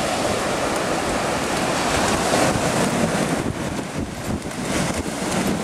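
Ocean surf breaking on the beach: a steady rushing noise of waves, easing a little about three and a half seconds in and building again.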